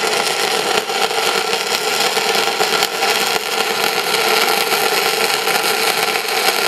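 Gasless flux-cored MIG welding arc at about 18 V and 160 A, a steady dense crackle and sizzle as the wire burns into a steel plate, cutting off at the end. It is run with the standard nozzle fitted, which the makers say disturbs the flux's shielding of the weld.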